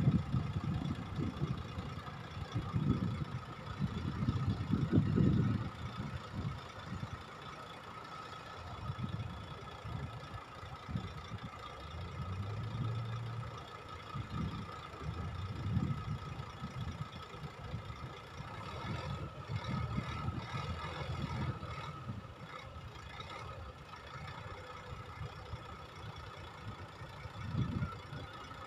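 Dump truck's diesel engine idling with its tipper bed raised, a low, uneven rumble that swells louder in the first few seconds and then settles.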